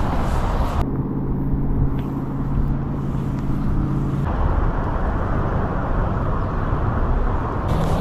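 Wind rumbling and hissing on the microphone. A steady low hum of several pitches comes through for about three seconds, starting about a second in.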